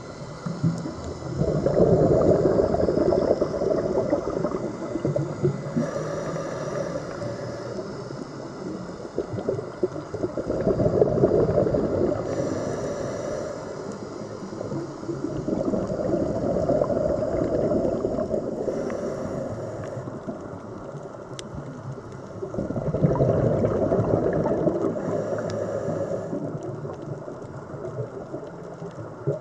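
Scuba diver breathing through a regulator underwater: four long bursts of exhaled bubbles rumbling and gurgling, about every seven seconds, with a faint hiss between them.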